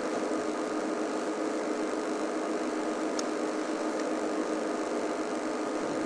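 Game-drive vehicle's engine idling: a steady hum under an even hiss.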